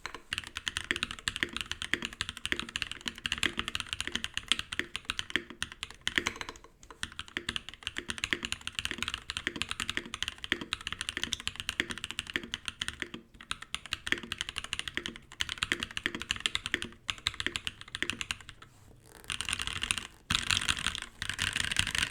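Typing on a Viendi 8L Southpaw mechanical keyboard fitted with lubed Durock POM linear switches, with plate foam and no case foam: a steady stream of irregular keystrokes. Near the end the keys clatter in two short, dense runs.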